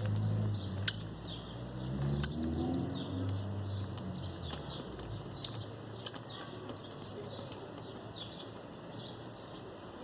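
Small birds chirping over and over, with a low hum underneath that fades out about five seconds in and a few sharp clicks.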